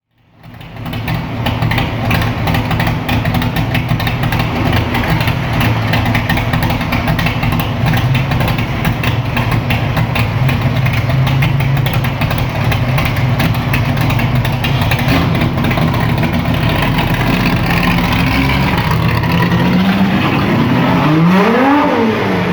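Naturally aspirated car engine idling loud and choppy through its exhaust, then revved up and let back down near the end.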